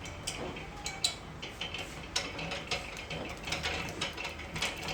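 Tulumba dough machine's mechanism working, with repeated uneven mechanical clicks and ratcheting.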